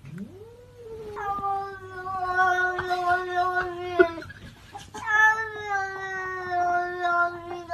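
A domestic cat giving two long, drawn-out yowls, each held at a nearly steady pitch for three to four seconds and sagging slightly toward its end, with a short break between them.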